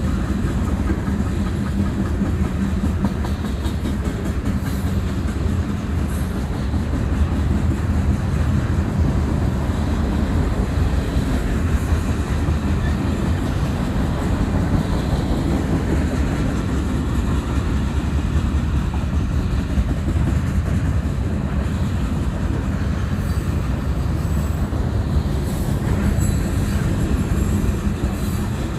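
Freight cars of a long mixed freight train rolling past on steel rails: a steady, loud rumble of wheels on track.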